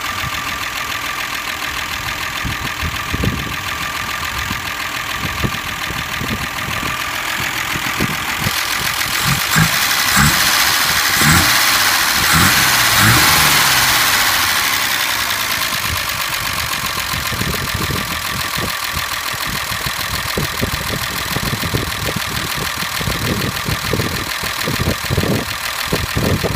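Mercedes M123 2.5-litre straight-six engine running, newly revived after ten years standing. It idles steadily, grows louder for a few seconds near the middle, then settles back to idle.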